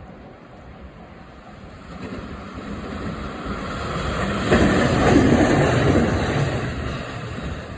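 A train passing over a level crossing: its running noise swells from about two seconds in, is loudest through the middle with a sudden step up as it draws level, then fades.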